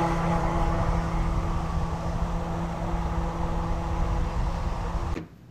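Wind buffeting the microphone, with a steady drone from an electric RC jet boat running at speed across a pond. The boat has a Castle 2028 brushless motor driving a jet pump. The sound cuts off suddenly about five seconds in.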